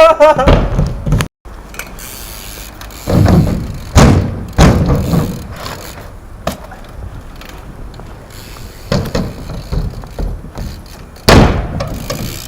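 BMX bike hitting the ground several times, heavy thuds about 3, 4 and 4.5 seconds in and again near the end, over a steady hiss.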